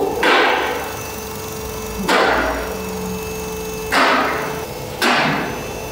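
Sharp knocks at roughly two-second intervals, each trailing off in a brief rattling hiss, over a steady machine hum.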